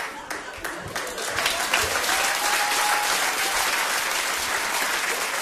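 Theatre audience applauding, the clapping swelling about a second in and then holding steady.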